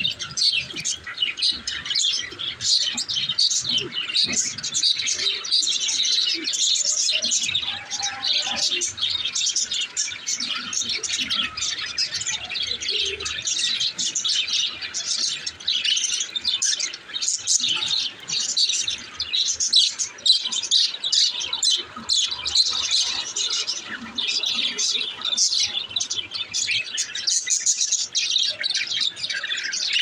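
A flock of budgerigars chirping continuously, many birds calling over one another in a dense, unbroken chatter.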